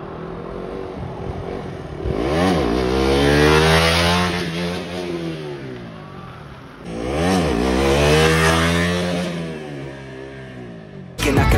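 Motorcycle engines sounding twice, about five seconds apart, each rising sharply in pitch and then falling away over a few seconds, as with bikes revving past one after the other.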